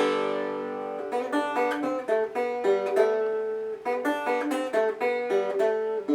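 Five-string oil can banjo with a Marvel Mystery Oil can body, played acoustically without amplification, with its little twang. A chord rings out and fades, then about a second in quick picked notes follow one after another.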